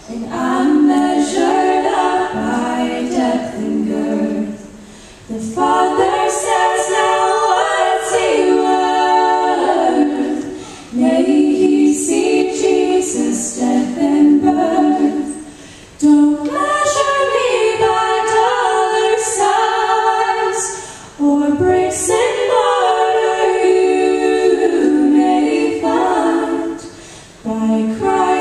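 Female vocal trio singing a worship song together into microphones through a PA, in sung lines of a few seconds with short breaks between them.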